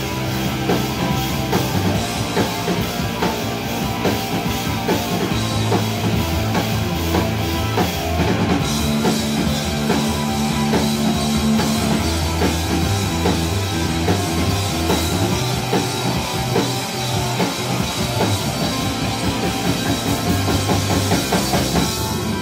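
A rock band playing loud and live: electric guitars, bass guitar and drum kit, with sustained low notes that shift in pitch under steady drumming.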